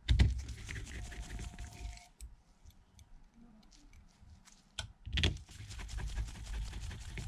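Small clicks and scrapes of tiny phone screws being handled and driven in with a precision Phillips screwdriver, with a louder knock right at the start and another about five seconds in.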